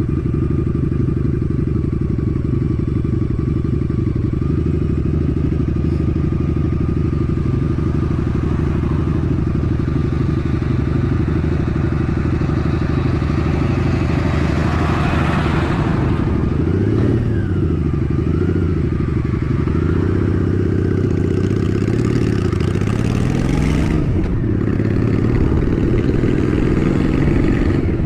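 Honda Shadow 750 ACE's liquid-cooled V-twin idling steadily at a stop. About halfway through, an oncoming truck passes, then the bike pulls away, its engine note rising and falling through the gear changes before settling into a steady cruise.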